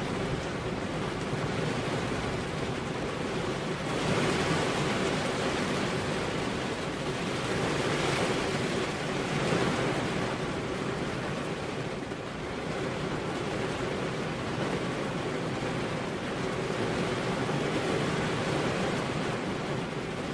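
Steady rain with wind, a continuous hiss that swells about four seconds in and again around eight to ten seconds.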